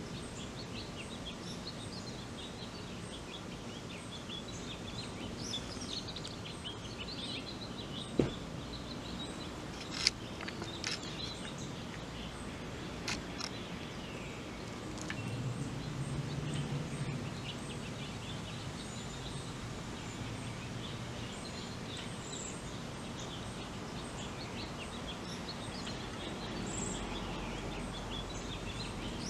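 Outdoor ambience with small birds chirping on and off in the background. Two sharp clicks come about two seconds apart, and a low rumble swells briefly about halfway through.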